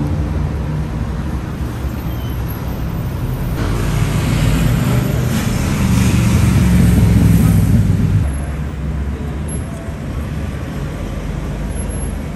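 Road traffic running steadily close by, with a passing vehicle growing louder from about three and a half seconds in and dropping away suddenly just after eight seconds.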